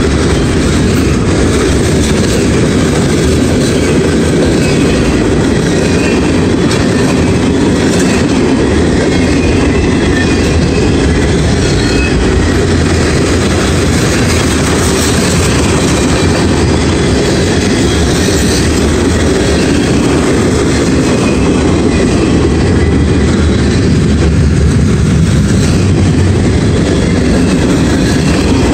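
CSX mixed manifest freight train passing close by at speed: its cars rolling over the rails in a loud, steady rumble of wheels on track.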